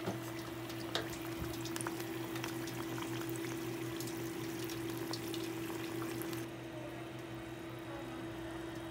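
Mongolian fried pastries sizzling and crackling in the oil of a deep fryer, with a couple of sharp taps early on as chopsticks turn them. A steady low hum runs underneath, and the crackling thins out about six and a half seconds in.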